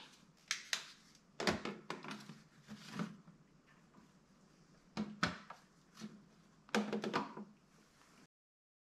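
Scattered clicks and knocks of a screwdriver and hands working on a motorcycle's plastic front fairing panel during reassembly, about seven in all with quiet gaps between, then the audio cuts to silence near the end.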